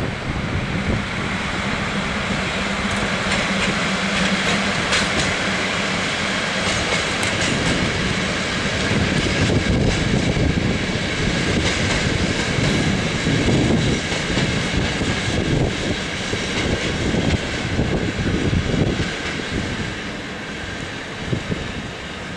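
Passenger train hauled by an EP07 electric locomotive rolling in over the station tracks, its wheels clacking over rail joints. A steady hum is heard for the first few seconds.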